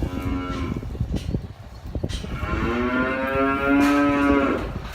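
Weaned calves bawling: one short call at the start, then a long drawn-out call beginning about two seconds in, with a few knocks between.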